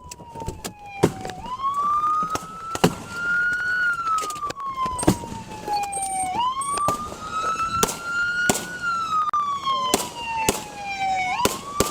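Police car siren wailing, its pitch rising and falling in slow cycles of about five seconds, with a dozen sharp bangs or knocks scattered irregularly through it.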